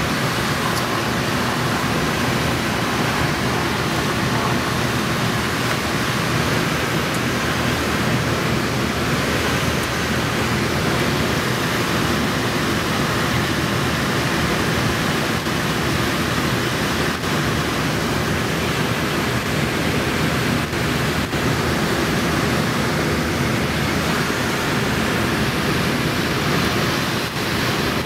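Steady rush of air over a glider's canopy during an aerotow takeoff and climb, with the low steady hum of the tow plane's engine beneath it.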